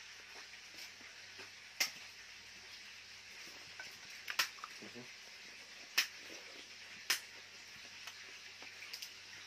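Quiet eating sounds of a meal of fried fish and rice eaten by hand: about five sharp clicks and smacks spaced a second or two apart, over a steady hiss.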